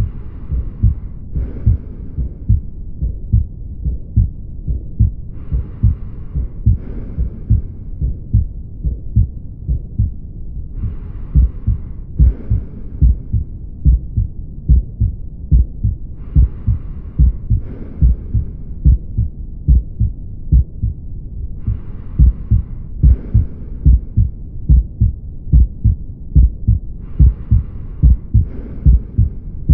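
Heartbeat heard through a stethoscope: low, regular thumps, roughly two a second. A brief hiss recurs about every five to six seconds.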